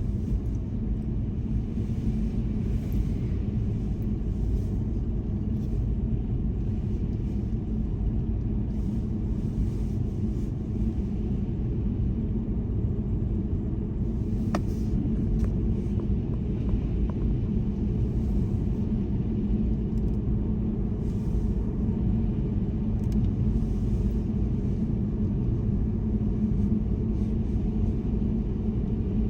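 A car driving steadily, its low road and engine rumble continuous, with one faint tick about halfway through.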